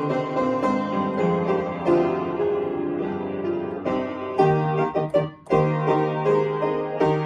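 Piano playing a melody with chords, with a short break about five seconds in before the playing resumes.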